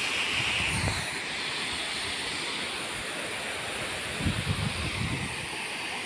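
Steady rushing of a distant waterfall, with wind gusting on the microphone about four seconds in.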